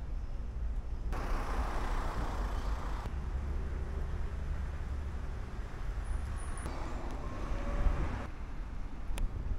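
Road traffic: cars passing on the street over a steady low rumble, the noise swelling for a couple of seconds about a second in and again near the end.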